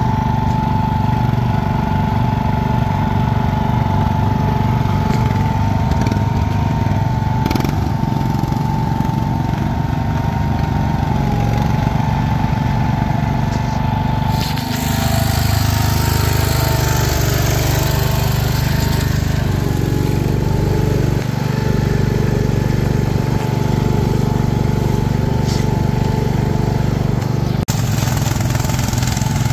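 Small garden tractor engines running hard as the tractors churn through deep mud, with a thin steady whine above the engine sound through the first half. About halfway in, the sound turns rougher and hissier.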